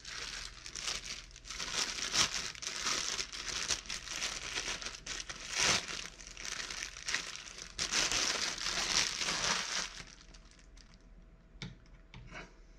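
Clear plastic bag crinkling steadily as a horse anatomy model is pulled out of it by hand; the crinkling stops about ten seconds in. Two light knocks follow as the model is stood on its clear plastic base.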